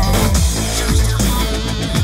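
Music with a heavy beat: deep bass and repeated drum hits.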